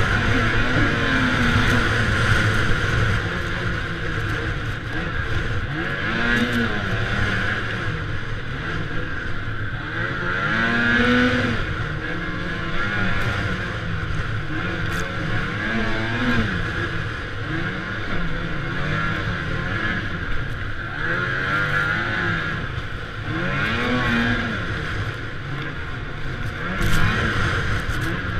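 Engine of a tracked snow vehicle revving up and dropping back again and again, every few seconds, as it is ridden through deep snow, over a steady rush of noise.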